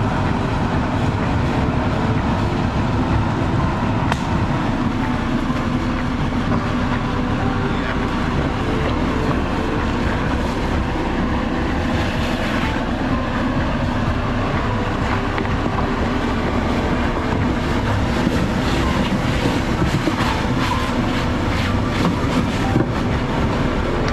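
Jeep Cherokee Trailhawk on 33-inch all-terrain tyres driving on, a steady drone of engine and tyre noise with rattling and knocking over it, busiest near the end.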